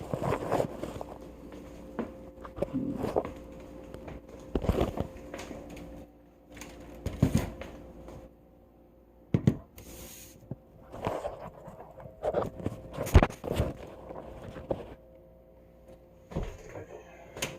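Scattered knocks, clicks and clatter of kitchen containers and utensils being handled on a counter as barbecue sauce is got out and readied, with quiet gaps between and a faint steady hum underneath.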